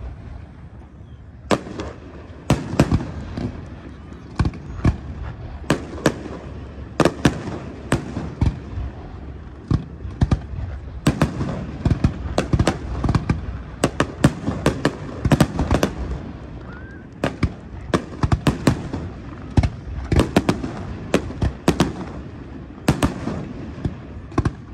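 Aerial fireworks display: shells bursting as many sharp bangs in quick, irregular succession over a continuous low rumble, with brief lulls near the start and about halfway through.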